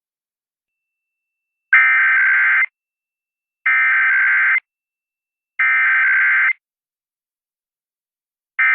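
Emergency Alert System test over the radio: three one-second bursts of screechy digital data tones, the SAME header code, about two seconds apart with silence between. Near the end comes a shorter burst of the same tones, the start of the end-of-message code.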